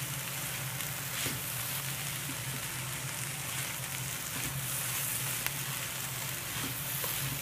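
Stir-fry of vegetables, scrambled egg and shredded chicken sizzling steadily in a skillet as a spatula stirs it, with a few light scrapes and taps of the spatula against the pan.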